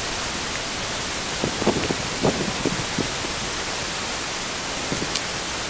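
A steady, even static-like hiss, with a few faint light knocks about two seconds in.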